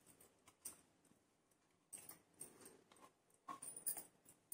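Near silence with a few faint, brief clinks and scrapes of steel kitchenware: a bowl and a mixer-grinder jar being handled.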